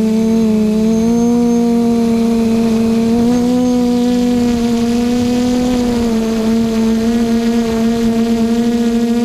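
QAV540G quadcopter's motors and propellers hovering, a loud steady buzzing hum recorded close up by the GoPro mounted on the craft, its pitch shifting slightly as the throttle adjusts.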